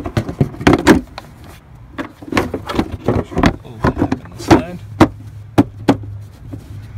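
Plastic engine-bay battery cover being pushed back into place: a string of irregular clunks and rattles, then three sharp snaps about five to six seconds in as it clips home.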